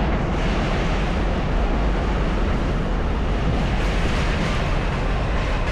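Steady city street rumble of traffic, heaviest in the low end, with no distinct events standing out.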